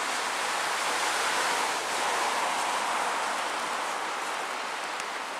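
Steady outdoor rushing noise, swelling a little and then easing off, with no footstep rhythm or clear single event.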